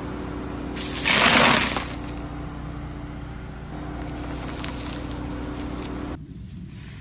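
A car tyre crushing foam balls and a block of floral foam with a loud crunch lasting about a second, a second into the clip, over the steady hum of the car's idling engine. A few faint crackles follow as the foam settles under the tyre.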